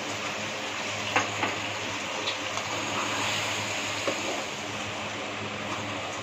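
Curry masala sizzling in an aluminium karahi, with a few sharp clinks of a metal slotted spoon against the pan as it is stirred. Partway through, water is added to the pan, turning the thick masala into a gravy.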